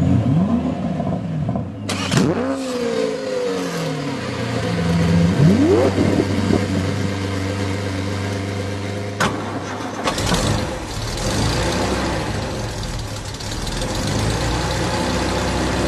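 A car engine running and being revved up and down a few times. There is a sharp click about nine seconds in, and the sound shifts, becoming lower and fuller, around ten seconds in.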